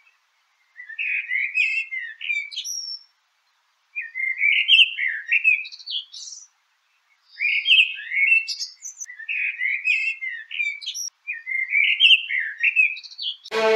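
Common blackbird song: five warbling phrases of about two seconds each, separated by short pauses. Each phrase slides up and down and ends in higher, thinner notes. Violin music begins just at the end.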